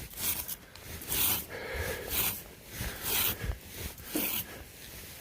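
Strokes of snow and ice being rubbed off a pony's coat, about one a second.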